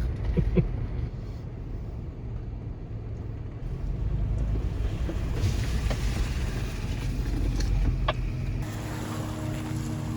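Toyota FJ Cruiser's 4.0-litre V6 running under way on a muddy trail, with a steady low rumble. A hiss of tyres through wet mud and water grows about halfway in.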